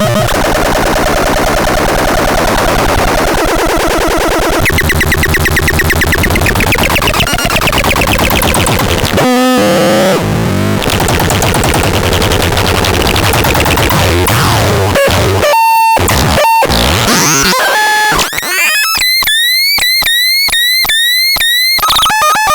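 MOZKO SMRT electronic noise synth making loud, harsh, chaotic noise with shifting buzzes and pitch glides. Near the end it turns into a fast stuttering pulse of about four chirps a second.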